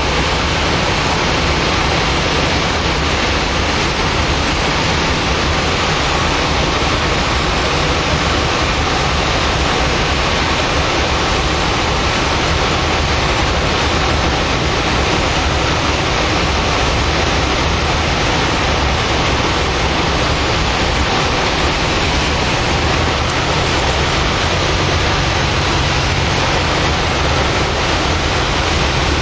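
Cessna 172's engine and propeller running steadily under a loud rush of airflow, heard inside the cockpit, with no change in level.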